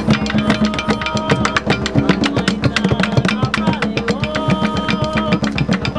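Music with fast, steady drumming and long held notes above it.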